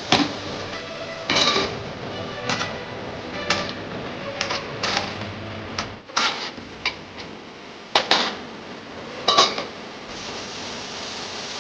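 Metal kitchen utensils and vessels clanking together in irregular knocks, a few of them ringing briefly, over a steady background hiss.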